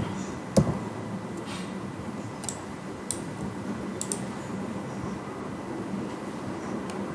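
Computer mouse clicking a few times over a steady background hum: single clicks about half a second in and around two and a half and three seconds, then a quick double click at about four seconds.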